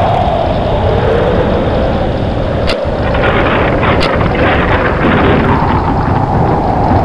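Storm sound effect: wind howling steadily, its pitch sinking and rising again, with two short sharp cracks about three and four seconds in.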